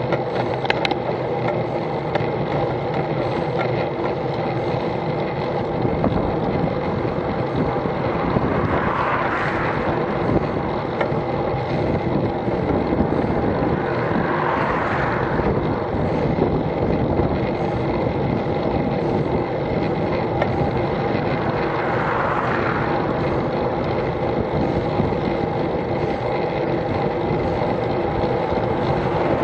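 Steady wind and road noise on a bicycle-mounted camera's microphone while riding, with three oncoming cars swishing past: about a third of the way in, near halfway and about three quarters of the way in.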